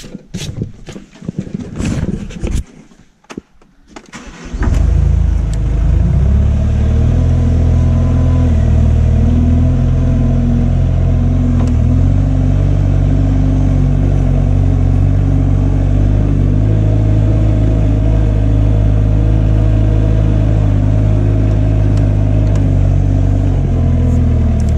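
A few knocks and rustles, then a loader's diesel engine starts about four seconds in and runs on steadily at a low speed, its pitch shifting slightly now and then.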